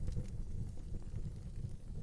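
Fire burning in an outdoor fireplace: a steady low rumble of flames with sparse, faint crackles and pops.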